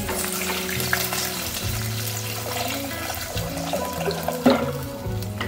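Water pouring from a steel jug into a clay curry pot, splashing as it fills, over background music with a steady bass line.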